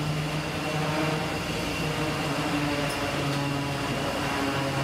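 Steady machinery noise from a fish-processing line, with a low hum that steps between two pitches.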